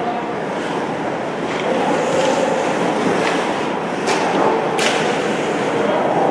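Game play in a sports venue: a steady noisy rumble with four sharp cracks, the loudest about four and five seconds in.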